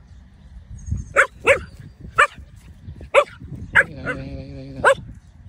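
Small puppy giving about six short, high-pitched yips, with a lower drawn-out whine near the end: playful barking at a crab it is toying with.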